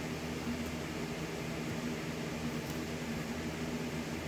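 Steady low background hum, with a few held low tones over an even hiss.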